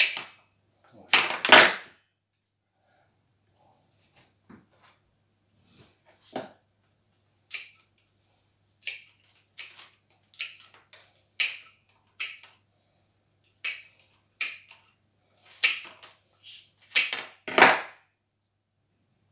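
Pruning shears snipping red dogwood stems: a run of short, sharp clicks, two loud ones at the start, then a steady series of cuts roughly every second from the middle on, loudest near the end.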